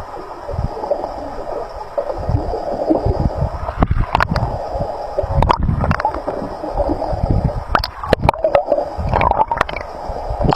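Muffled gurgling and rushing of water around an underwater camera, with a few sharp knocks.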